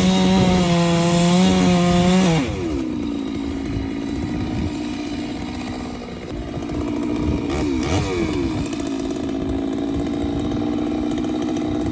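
Two-stroke chainsaw at full throttle felling a dead standing tree. About two seconds in its pitch drops as the chain loads up in the cut, and the revs swing briefly near eight seconds.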